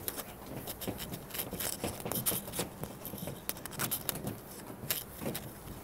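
Footsteps of several people walking on a checker-plate metal gangway floor, an uneven run of sharp taps and scuffs several times a second.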